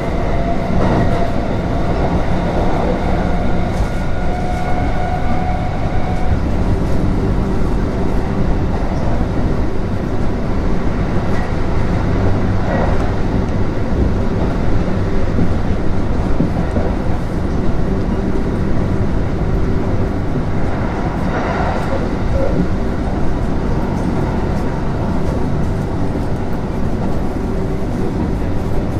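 Kintetsu 3200 series electric train running, heard from on board: a steady rumble of wheels on the rails, with a faint steady whine in the first few seconds and a few brief knocks from the track.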